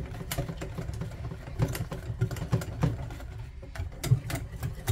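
Rapid, irregular clicking and knocking, several strokes a second, from hand work with a utensil in a pot while preparing a mixture.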